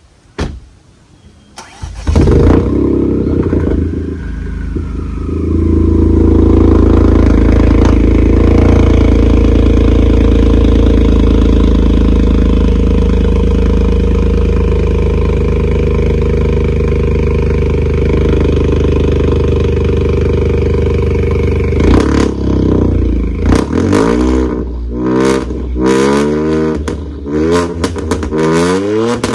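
Ford Fiesta's 1.0-litre turbocharged three-cylinder starting up loud through its exhaust about two seconds in, then running steadily. Near the end it is revved in a series of quick blips, each rising and falling.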